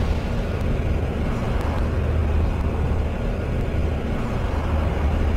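Steady low rumble with a hiss-like haze above it: a tense background drone in an anime soundtrack.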